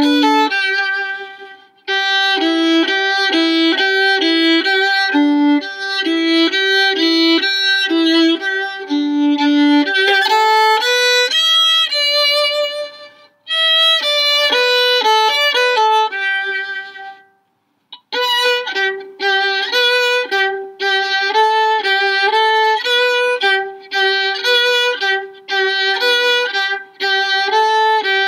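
Violin playing a melody, note after note, with short breaks about two seconds in, again about halfway, and for about a second two-thirds of the way through.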